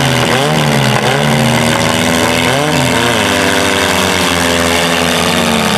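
Demolition derby compact cars' engines revving, rising and falling in pitch several times in the first half, then holding a steady pitch as the cars push against each other.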